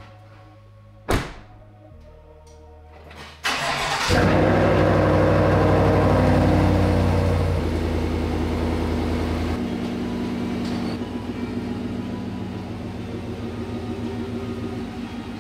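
A truck door shuts with a single thud about a second in. Then the GMC Sierra AT4's engine cranks and starts about three and a half seconds in, running at a loud fast idle that drops to a quieter idle after about six seconds.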